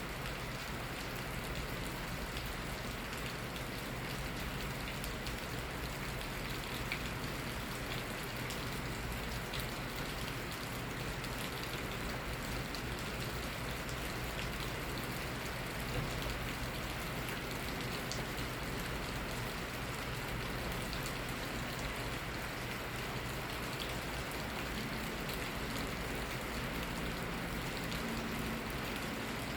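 Steady rain falling, with individual drops ticking and pattering on nearby surfaces throughout.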